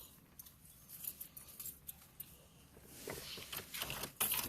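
Faint jangling and small clicks of keys being handled, getting busier and louder over the last second and a half.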